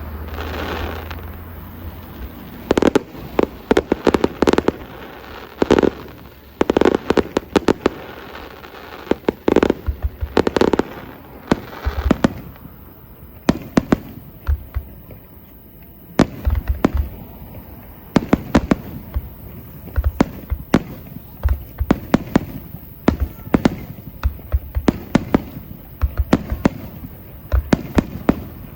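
Fireworks display: many sharp bangs of bursting shells, often in quick volleys, with hissing crackle between the bangs in the first half.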